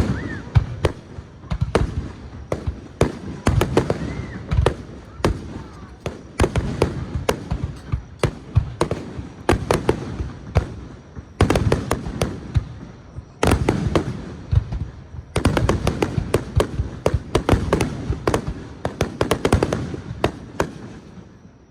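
Fireworks display: dense volleys of sharp bangs and crackling reports, broken by a few short lulls.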